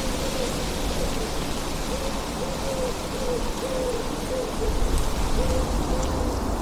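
Steady rain hiss with a series of short, low hooting notes repeated about twice a second throughout.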